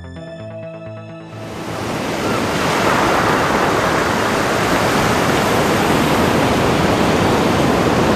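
Background music that gives way about a second in to ocean surf breaking, which swells up over a couple of seconds and then holds as a loud, steady wash of waves.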